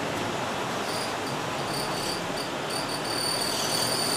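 Inside a city bus moving slowly in heavy rain: the steady rush of the bus running and the rain, with a thin high-pitched squeal that comes and goes from about a second in and holds steadier near the end.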